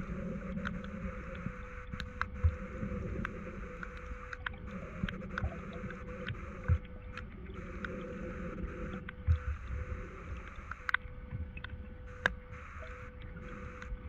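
Stream water heard underwater: a steady low rush of flowing water with scattered sharp clicks and ticks and a few louder knocks. A faint steady tone runs beneath it.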